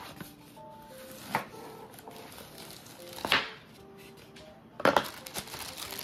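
Soft background music with three sharp handling sounds about two seconds apart: a cardboard box being handled and opened, and the plastic bag around a coiled cable crinkling.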